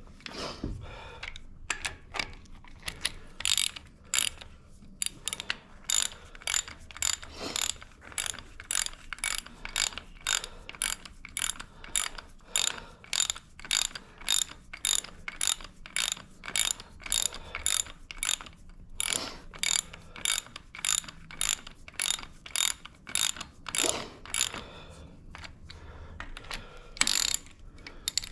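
A hand ratchet wrench being worked back and forth, clicking in a steady rhythm of about two to three strokes a second, with a few short pauses.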